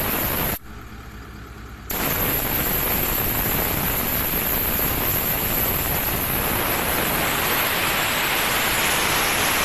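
Air hissing out of an off-road tyre through an ARB tyre deflator on the valve stem, the tyre being aired down. The hiss stops about half a second in and starts again just before two seconds, then runs on steadily.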